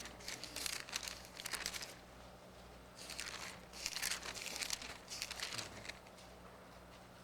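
Thin Bible pages rustling as they are turned, in two spells of crinkling, with a faint steady low hum underneath.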